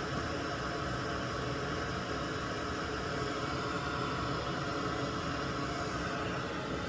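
Steady airy hiss of a running fan or blower, even throughout with no clicks or knocks.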